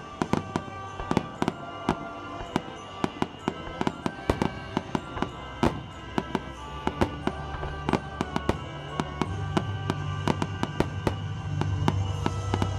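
Aerial fireworks bursting in quick succession: dozens of sharp bangs and crackles, several a second. Music plays underneath, its bass growing louder in the second half.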